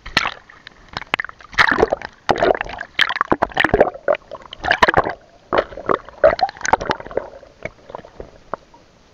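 Water sloshing and splashing in irregular bursts, with sharp clicks mixed in, dying down near the end.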